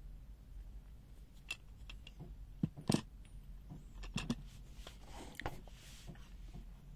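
Wera 8790 HMC Zyklop 1/2-inch chrome steel sockets in plastic hang-tag holders being handled and moved about on a board. A handful of sharp clicks and knocks, the loudest about three seconds in, with a little rustling.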